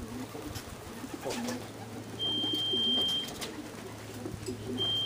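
Racing pigeons cooing in the loft, low warbling coos over and over. Two long steady electronic beeps of about a second each cut in, a couple of seconds apart, louder than the cooing.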